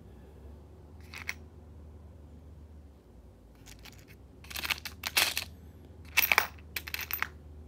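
Small hardware being handled: a series of short clicks and rattles, sparse at first and busier and louder in the second half, over a steady low hum.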